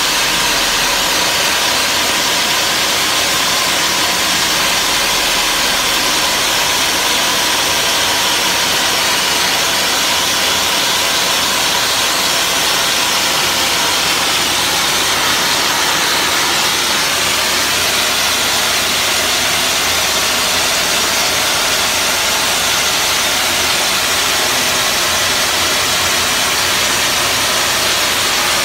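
Wet sandblasting nozzle spraying a steady hiss of air, water and fine recycled glass abrasive at about 20 psi against painted brickwork, stripping the paint.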